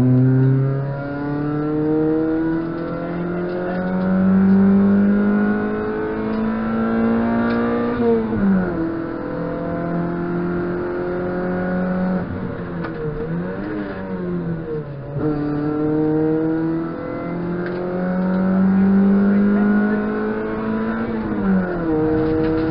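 Race car's engine heard from inside the cabin under load, its note climbing steadily as it revs out. The revs fall sharply about eight seconds in and again about fifteen seconds in, with a stretch of quick rises and falls between about twelve and fifteen seconds before it pulls up again.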